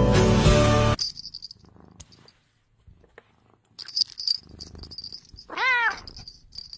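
Background music that cuts off about a second in, followed by faint high chiming tones and, near the end, a single short cat meow from the dog-and-cat logo sting.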